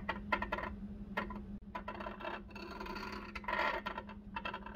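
The scribe point of a hermaphrodite caliper scratching along the hard mill scale of steel bar stock in a series of short, uneven scraping strokes, marking a layout line. A steady low hum runs underneath.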